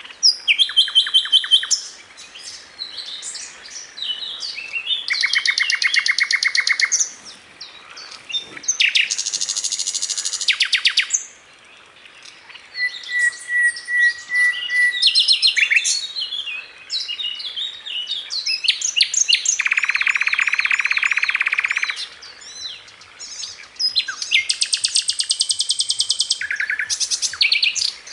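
Sikatan londo song: a fast, varied series of trills, rattles and chirps, each phrase a second or two long with short pauses between, and a short run of even whistled notes around the middle.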